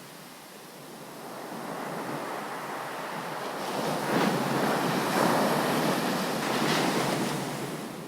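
Ocean surf: a wave builds up, breaks and washes in with a rushing hiss that swells over several seconds, surges a few times, then fades near the end.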